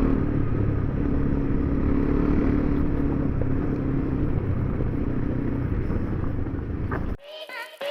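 Single-cylinder dual-sport motorcycle engine running at a steady pace, with wind and tyre noise. About seven seconds in it cuts off suddenly and music begins.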